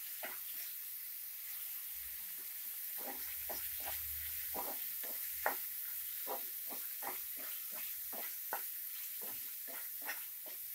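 Tiger prawns and onions sizzling in oil in a frying pan, stirred with a wooden spatula that scrapes and taps against the pan many times.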